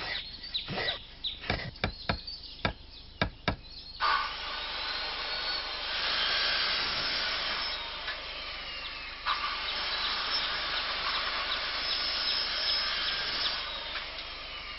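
Workshop tool noises: a quick run of sharp taps and knocks, then about ten seconds of steady rasping like sawing or a power tool at work, with a brief break partway through.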